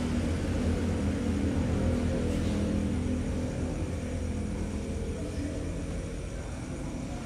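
Low, steady rumbling drone with a few faint held tones above it, slowly fading.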